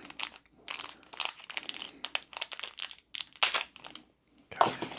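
A lure package being torn and pried open by hand: the packaging crinkles and crackles in irregular bursts, loudest about three and a half seconds in.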